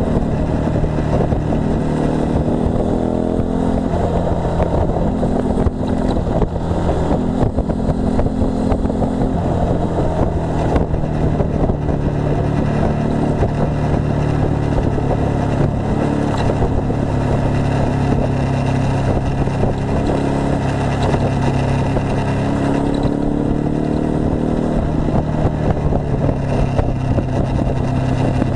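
Motorcycle engine running under way, heard from on board with wind rush over the microphone. The engine pitch climbs as it accelerates about four seconds in and again near the end.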